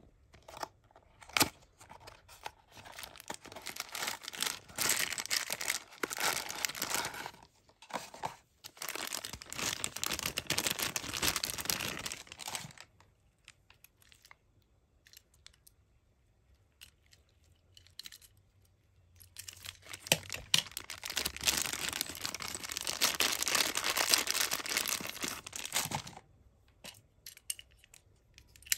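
Cardboard toy box being opened and the clear plastic bag around a die-cast Tomica toy crinkling and tearing. The rustling comes in two long spells, with a sharp click just before the first.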